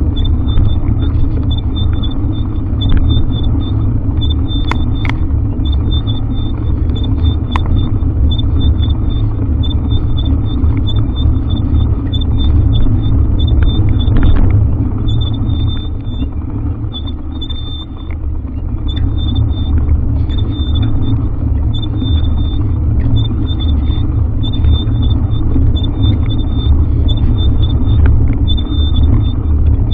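Wind buffeting the microphone of a camera on a moving bike, a loud steady low rumble with road noise underneath and a few sharp clicks.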